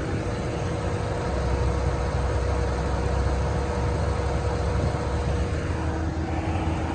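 Dodge Ram 1500 pickup's engine idling, heard from beneath the front end: a steady low rumble with a thin steady tone above it, the rumble growing a little stronger for a few seconds in the middle.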